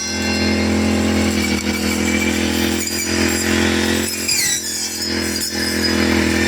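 Four-stroke brush cutter engine running steadily at working speed while cutting grass.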